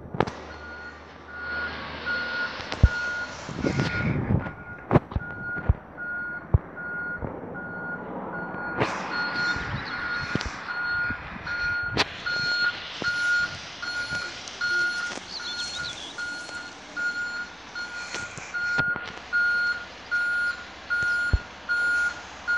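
A rear-loading bin lorry's reversing alarm beeping at an even rate on one steady pitch while the truck backs up, over the running of its diesel engine, with a few sharp knocks.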